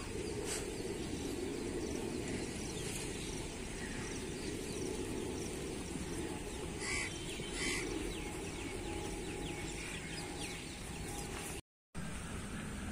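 Open-air background: a steady low rumble, with two short bird calls about seven seconds in.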